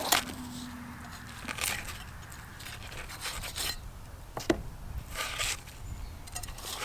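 Cleaver-style knife cutting through a roast rabbit and a leg being torn off by hand: a series of short tearing and scraping sounds, with the blade meeting the wooden cutting board. The sharpest stroke comes right at the start.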